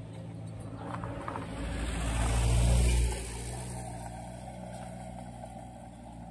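A minibus drives close past, its engine and tyre noise building to a peak about three seconds in and then falling away sharply. Under it, the drilling rig's engine hums steadily.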